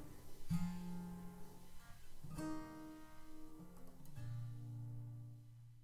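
Closing chords of a song played on acoustic guitar: three chords strummed about two seconds apart, each left to ring, fading away at the end.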